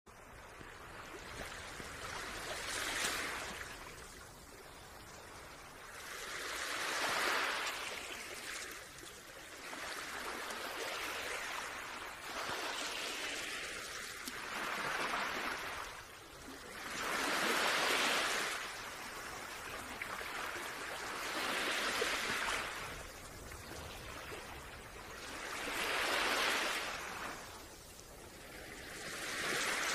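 Small waves washing in over shallow water at the shore, each one swelling and fading, about one every four seconds.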